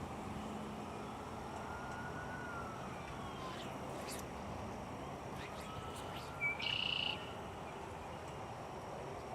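A bird calling: faint sliding calls, then one short, loud call about two-thirds of the way through, over a steady outdoor hiss.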